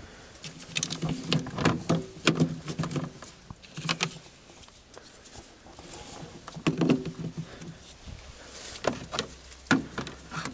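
Irregular clicks, knocks and rattles as the NOCO Genius Boost GB30 jump starter's clamps and cable are handled and clipped onto a car battery's terminals.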